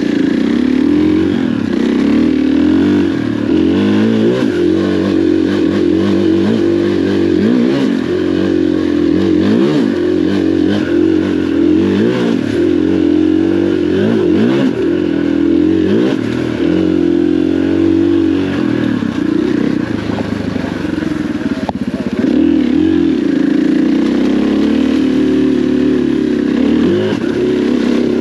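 KTM dirt bike engine running under constantly changing throttle, its pitch rising and falling every second or two as the rider revs up and rolls off.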